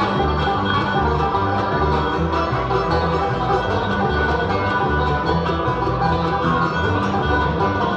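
Bluegrass band playing an instrumental passage: plucked strings over a steady, even bass beat.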